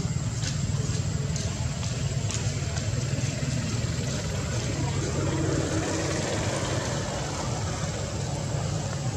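Steady low hum of an engine running, with a few faint clicks in the first few seconds.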